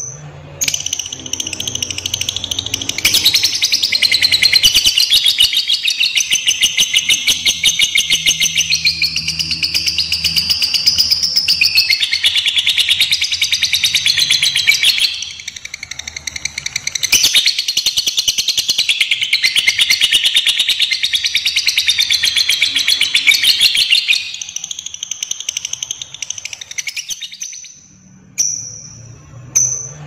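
Lovebird giving its long 'ngekek' chatter: a fast, unbroken run of high, shrill repeated notes, in two long stretches with a short break about halfway through, tailing off near the end.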